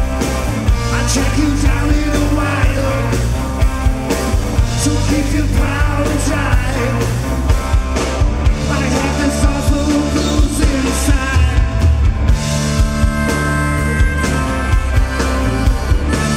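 Live blues-rock band playing: electric guitar, bass guitar and drum kit through the stage PA. Near the end a harmonica comes in with held notes.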